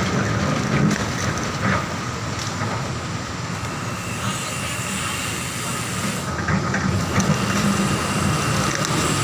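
Kobelco hydraulic excavator's diesel engine running steadily with a constant high whine, mixed with passing road traffic, and a few knocks in the first couple of seconds.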